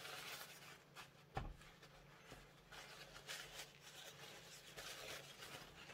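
Near silence: quiet room tone with a few faint rustles and one soft click about a second and a half in.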